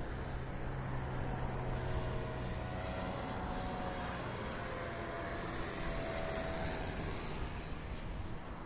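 Freshly overhauled O.S. Alpha 81 glow engine of a Hangar 9 Showtime 50 model aerobatic plane running in flight, a steady distant buzz whose pitch rises and falls a little.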